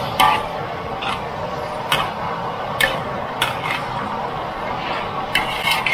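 Metal spatula knocking and scraping against a wok during stir-frying, with sharp clanks about once a second, some with a short metallic ring, over a steady hiss.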